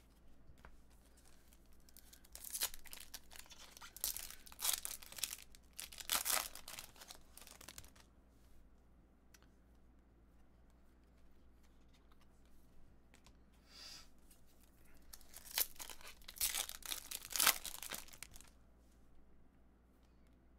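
Trading-card pack wrappers being torn open and crinkled, in two bouts of crackly rustling: one a few seconds in, another past the middle.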